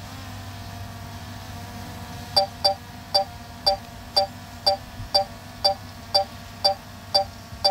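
DJI Air 2S drone hovering with a steady hum. About two seconds in, a short electronic beep starts and repeats evenly, about twice a second.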